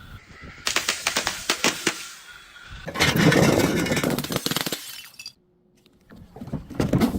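A glass bottle being crushed: a run of sharp cracks about a second in, then a loud sustained crunch of breaking glass for about two seconds, a brief pause, and more cracking near the end.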